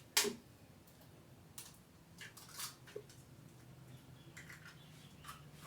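Kitchen handling at a blender jar while eggs are added: one sharp knock just after the start, then a few faint clicks and taps. A faint low hum sits underneath.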